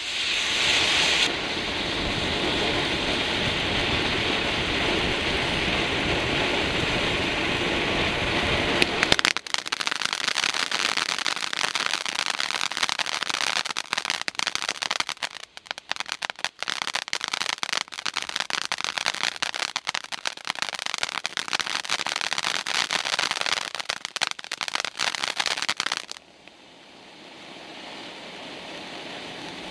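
Summer Time ground fountain firework spraying sparks with a steady, loud hiss. After about nine seconds it turns to dense, rapid crackling that stops abruptly near the end, leaving a quieter hiss that slowly builds again.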